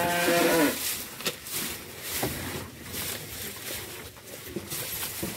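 A bovine lowing, one drawn-out call that falls in pitch and ends under a second in. Then quieter irregular clicks and rustling.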